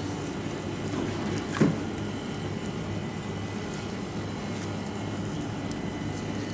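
Steady low machine hum of kitchen equipment, with a single soft knock about a second and a half in.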